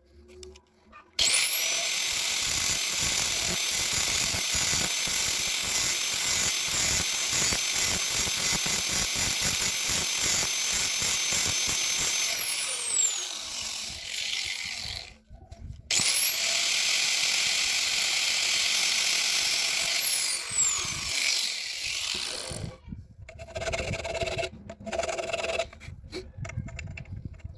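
Homemade geared drill press's motor switched on and running at steady speed with a high whine, then switched off and winding down with falling pitch. It starts again, runs a few seconds and winds down again, followed by a few short bursts near the end.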